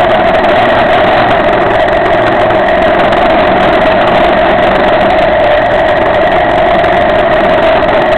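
Cagiva Elefant 600 motorcycle engine running steadily at an even, unchanging pitch while the bike rides along, heard loud and close from a camera mounted on the motorcycle.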